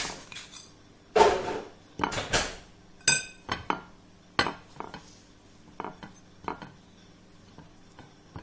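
Scattered clicks and knocks of fingers working grape leaves against a ceramic plate, with a louder scraping rustle about a second in and a short ringing clink about three seconds in.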